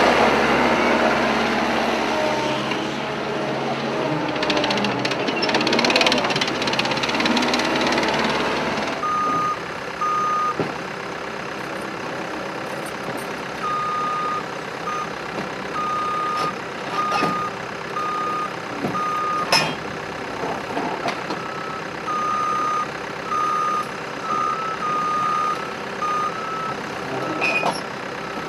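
Heavy construction machinery: a diesel engine running hard for about the first nine seconds, then, after an abrupt change, a reversing alarm beeping at one steady pitch over a quieter engine, with a few sharp knocks.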